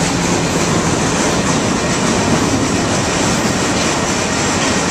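Train cars rolling past at close range: a steady, loud rumble and rattle of wheels on the rails.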